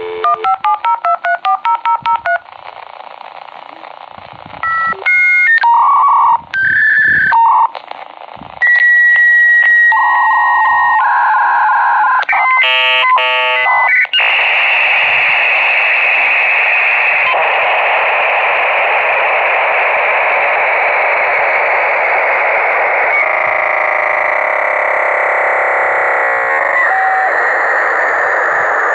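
Dial-up modem connecting: a quick run of touch-tone dialing beeps, then the handshake, with a series of steady and warbling tones and a long high answer tone, giving way about halfway through to a loud, steady hiss of data noise.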